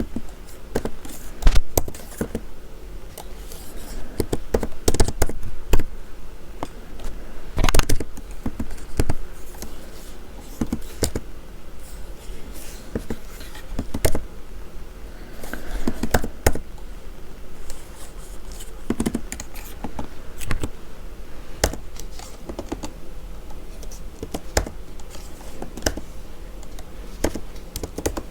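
Typing on a computer keyboard: a run of irregular key clicks and taps, some struck harder than others.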